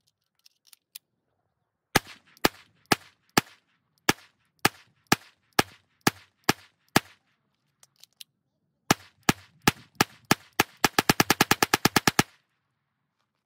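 Glock 44 .22 LR pistol being fired: a few light clicks, then a steady string of sharp shots about two a second, a short pause, more shots, and a very rapid burst of about a dozen shots that ends suddenly.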